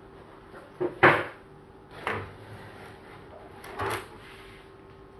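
A few short knocks and clatters of hard objects being handled, the loudest about a second in, over a faint steady hum.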